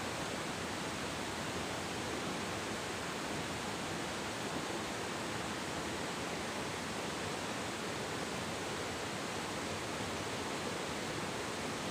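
Steady rushing of a river flowing over rocks, an even hiss without breaks.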